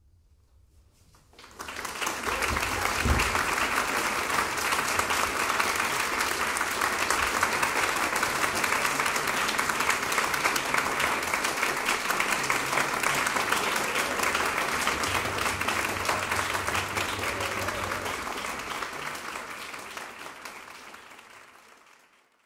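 Audience applauding at the end of an orchestral performance: after a second and a half of silence the clapping breaks out suddenly, holds steady, and fades out near the end.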